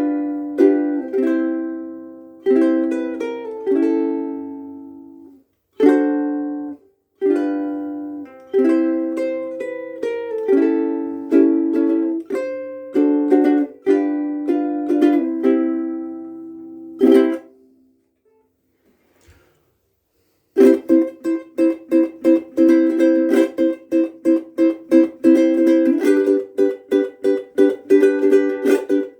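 Koaloha KSM-01 pineapple soprano ukulele with UkeSA strings played solo: picked notes and chords left to ring, a pause of about two seconds past the middle, then fast, steady strumming.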